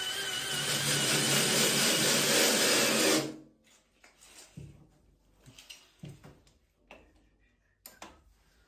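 Electric drill running steadily with a high whine, then stopping about three seconds in; after that only a few faint clicks and knocks of handling.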